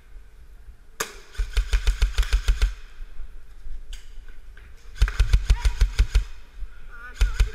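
Airsoft electric guns firing on full auto in rapid bursts of about ten shots a second: a long burst about a second in, another about five seconds in, and a short one near the end.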